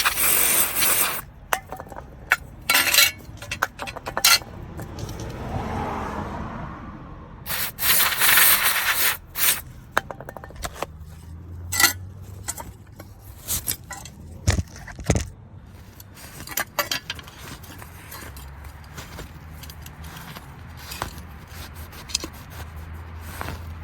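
Aerosol can of contact cleaner sprayed in short hissing bursts onto bare metal, the longest near the start and about eight seconds in, followed by scraping, light clinks and clicks of wiping and handling.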